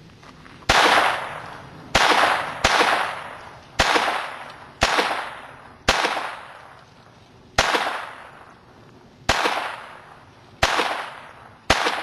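Ten shots from a Ruger .22 pistol fired at an irregular pace of about one a second, some in quick pairs, each crack followed by an echo that fades over about a second.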